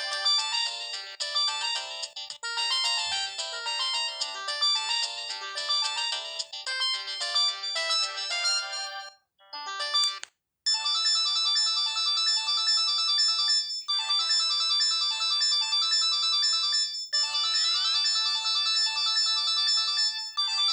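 Samsung GT-E1080F phone playing its built-in polyphonic ringtones. One quick melody ends about nine seconds in, a brief pause follows, and then a different ringtone melody starts and keeps playing.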